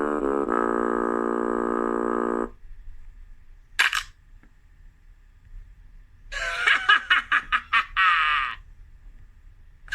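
A string of cartoon sound effects: a buzzy held tone that steps in pitch at first and then holds steady for about two seconds, a brief sharp zip a little later, then a rapid fluttering run of pulses with falling pitch slides lasting about two seconds.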